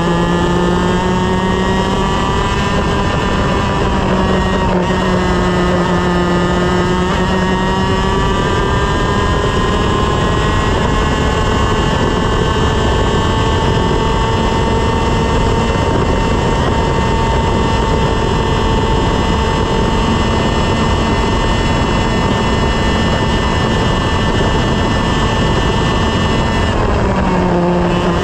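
125cc TaG two-stroke kart engine at racing speed. Its revs climb with a small dip along the way, hold near the top for about ten seconds, then drop sharply near the end.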